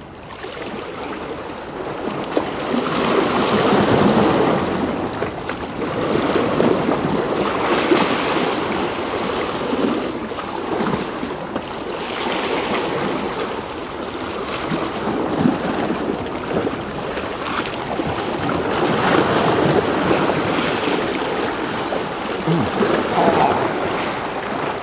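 Sea waves washing against breakwater rocks, swelling every few seconds, with wind buffeting the microphone.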